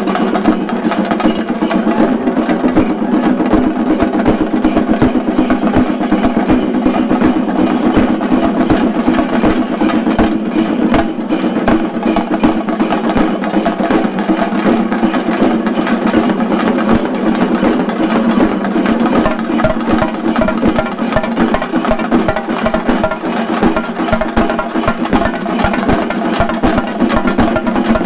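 A shinkarimelam troupe of chenda drums playing fast, dense, unbroken rolls of stick strokes, loud and steady throughout.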